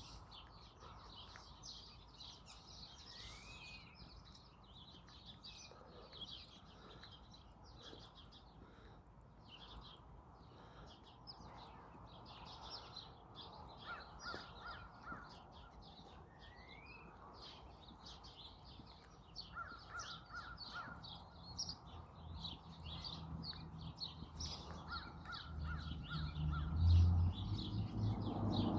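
Morning chorus of many songbirds chirping and singing, with short trills and a few rising whistled notes among the chirps. A low rumble builds over the last several seconds.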